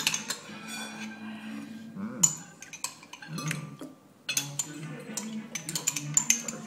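Cutlery and china clinking on and off, with one sharp clink about two seconds in, over quiet background music.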